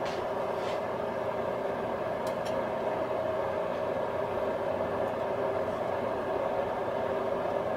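Steady mechanical hum with a rushing noise, unchanging throughout, with two faint ticks about two seconds in.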